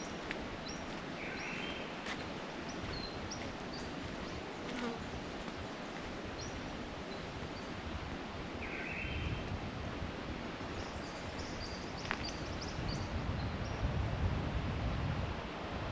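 Steady rushing of a river under a rainforest canopy, with short high bird chirps scattered over it. A low rumble builds in the second half.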